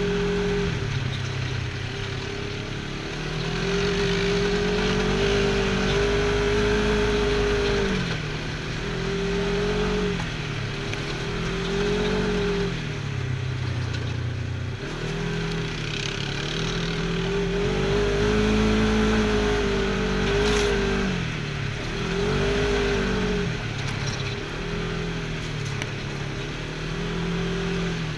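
Side-by-side UTV engine heard from the driver's seat, revving up and easing off again and again, about every two seconds, as it drives along a dirt trail. There is a single sharp click about two-thirds of the way through.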